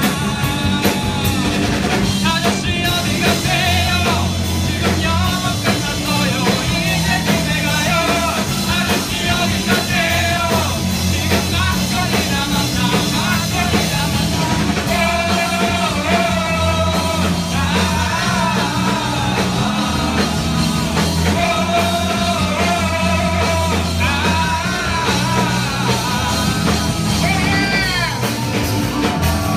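Live rock band playing a song with a singer: steady bass and drums under a sung melody.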